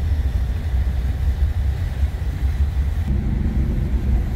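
Car driving, heard from inside the cabin: a steady low rumble of engine and road noise. A slightly higher hum joins about three seconds in.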